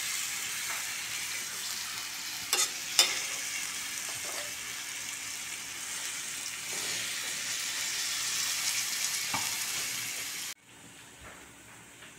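Diced potato and bottle gourd sizzling in oil and spices in a metal kadhai while a spatula stirs them, with two sharp knocks of the spatula on the pan about three seconds in. The sizzle cuts off abruptly near the end.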